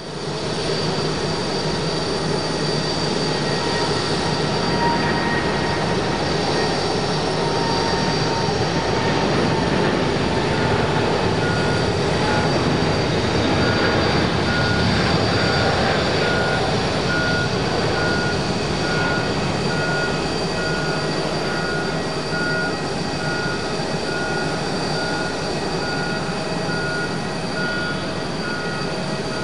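Boeing 777-200ER airliner's twin jet engines at takeoff thrust: a steady roar through the takeoff roll and climb-out, loudest about halfway through as the aircraft passes. A faint whine in the roar drops slowly in pitch over the first dozen seconds.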